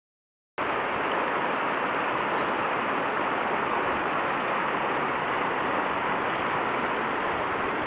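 Shallow river rushing steadily over rocks in a riffle. It starts abruptly about half a second in, after silence.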